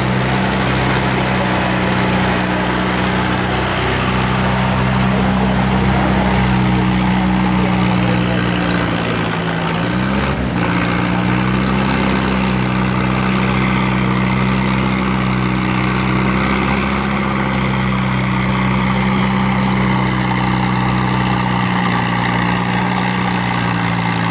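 Farmall tractor engine running steadily under load as it pulls a weight-transfer sled at low speed. About ten seconds in its note dips briefly and then comes back up.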